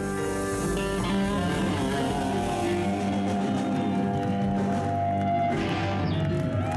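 Live rock band playing electric guitars, bass, drums and keyboard, with the guitars holding long sustained chords.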